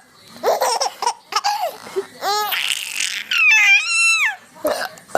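Four-month-old baby laughing in short bursts, breaking into a high, gliding squeal a little past the middle.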